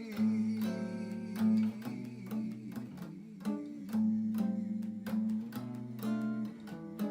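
Bossa nova music: an instrumental passage of plucked acoustic guitar chords.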